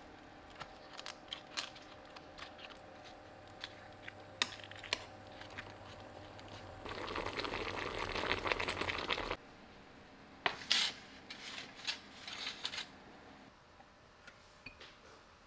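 Water bubbling in a stainless saucepan of blanching bok choy, louder for about two and a half seconds in the middle and cutting off suddenly. Light clicks and ticks are scattered throughout, with a few sharper clicks and knocks later on.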